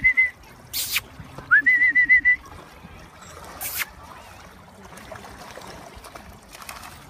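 A person whistling to call the dog back: two whistles, each rising and then held as a short warbling note, about a second and a half apart, with two sharp clicks. After that only a faint hiss of wind and water.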